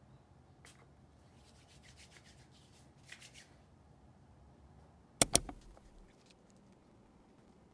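Soft rubbing and rustling of hands handling a small card-shaped hand sanitizer spray. About five seconds in come two sharp clicks in quick succession, the loudest sounds.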